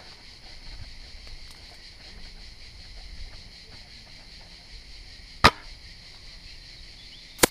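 Airsoft sniper rifle firing: two sharp cracks about two seconds apart, the first the louder, over a steady high hiss.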